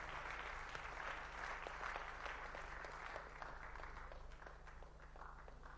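Audience applauding, faint, thinning out into scattered claps and fading away toward the end.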